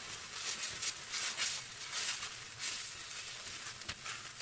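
Somen noodles sizzling in a hot frying pan while being tossed with chopsticks: a steady hiss with repeated short swishes as the noodles are turned, and a light click near the end.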